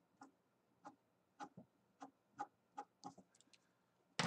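Short, quick strokes of a hard H graphite pencil flicking across paper to lay in fine fur hairs, about two light strokes a second. A single sharper, louder click comes near the end.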